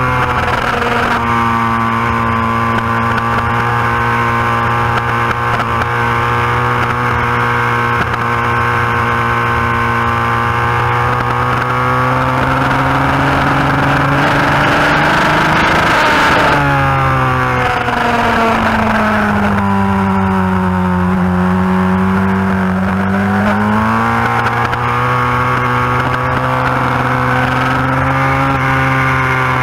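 Yamaha FZR1000 inline-four race bike heard from onboard at racing speed. The engine revs climb slowly for about fifteen seconds, then drop sharply as the throttle is shut for a bend. They stay low for a few seconds and climb again near the end.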